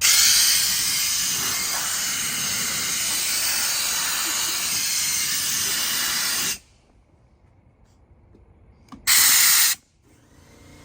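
Compressed air hissing out of an air compressor's hose nozzle: one long blast of about six and a half seconds, then a short blast of under a second near the end.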